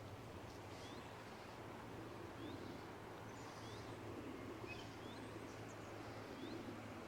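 A small bird repeating a short, high, rising chirp about once a second, over a steady low rush of noise.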